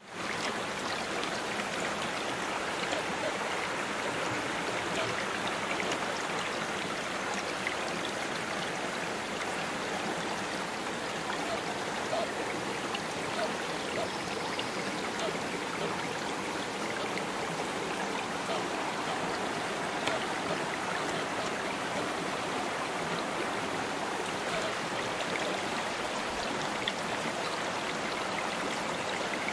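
Small rocky creek flowing over and between boulders: a steady rush of running water with small splashes.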